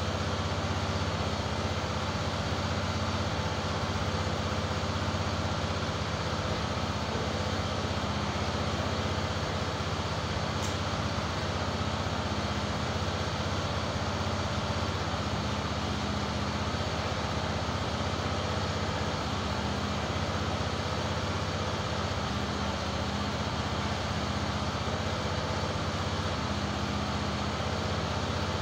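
EZ Boardwalk 40 band sawmill's engine running at a steady speed, its pitch and level unchanging.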